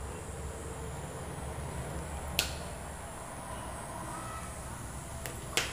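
Sharp clicks of hand wire stripper pliers snipping and stripping the insulation on a wire, once a little under halfway and again just before the end, over a low steady hum.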